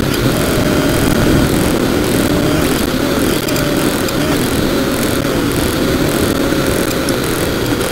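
Drone's electric motors and propellers buzzing steadily, recorded close up by its own onboard camera, the pitch wavering slightly up and down as it manoeuvres.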